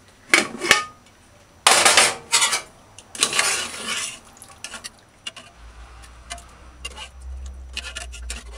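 Pots and kitchen utensils clattering and scraping as boiled food is dished out of a pot onto a plate: three loud scrapes in the first four seconds, then lighter clinks and knocks.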